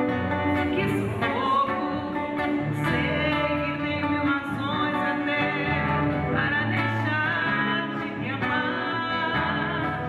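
A woman singing a slow bolero in Portuguese, with long held notes, accompanied by acoustic guitar.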